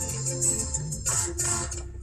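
Recorded music playing through a car's dash-mounted Bluetooth MP3 player and amplifier: a bass line under a high rattle, with no voice in this stretch. The sound drops out briefly just before the end.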